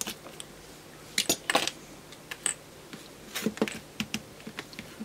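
Light clicks and taps of small plastic parts as a front-panel push-button switch is pried off its circuit board and its keycap set down. The clicks come in a quick cluster about a second in and another a little past three seconds.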